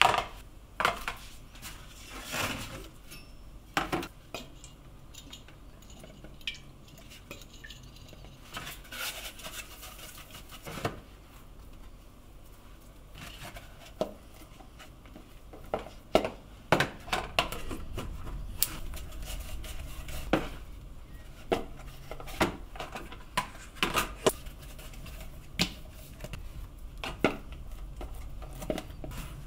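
Clear plastic food-storage containers being handled: irregular clacks and knocks as they are pulled apart from a stack, set down on a wooden board and moved about while dough balls are placed in them.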